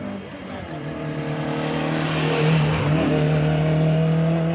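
Rally car's engine at high revs, getting louder as it approaches, with a brief dip in engine note about three seconds in as the driver lifts or shifts gear. The engine then pulls on.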